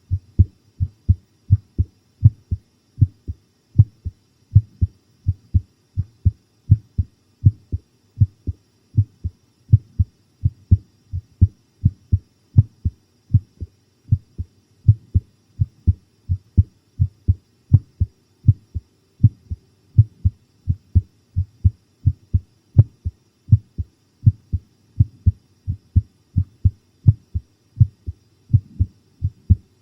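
Human heartbeat recorded close up: a pounding, regular rhythm of deep paired lub-dub thumps.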